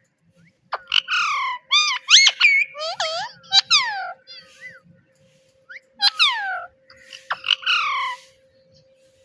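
A pet parrot calling in quick runs of short, pitched, mostly falling calls, in two bursts with a pause between them.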